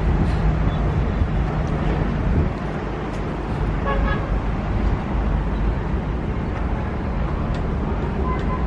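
Steady low rumble of outdoor background noise, with a brief high-pitched toot about four seconds in.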